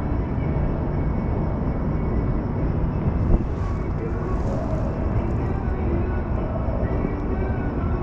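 Steady rumble of a Las Vegas Monorail car running, heard from inside the car, with faint muffled voices and a single knock a little over three seconds in.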